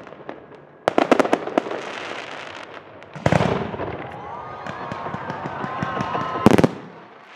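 Fireworks shells bursting overhead: a quick run of cracks about a second in, a loud burst at about three seconds followed by dense crackling, and a sharp bang near the end.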